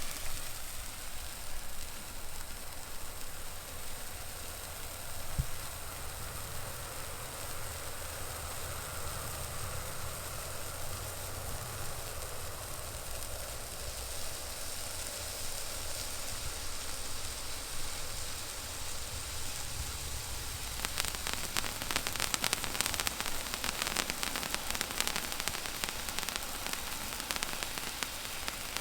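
Small ground firework burning with a steady hiss and sizzle for about twenty seconds. It then breaks into dense, rapid crackling that runs to the end.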